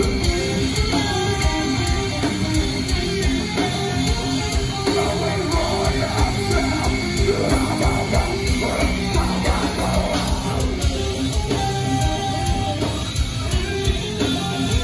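Live heavy metal band playing loud, with distorted electric guitars, bass and a fast-hitting drum kit.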